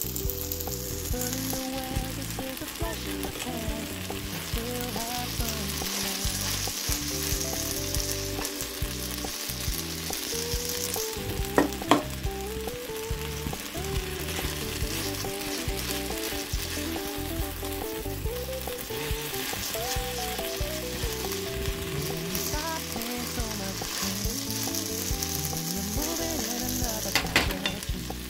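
Chopped cabbage, tomato and tofu sizzling in a frying pan while being stirred, with a steady frying hiss. A sharp knock of the utensil against the pan comes about halfway through, and a few more near the end.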